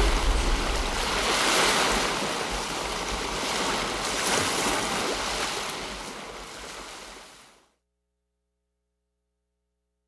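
A steady rushing noise with a deep rumble underneath, swelling and easing a couple of times, then fading out to silence about seven and a half seconds in.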